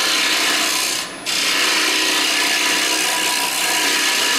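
Hollowing tool cutting the inside of a wooden bowl spinning on a lathe: a steady scraping hiss that drops out briefly about a second in.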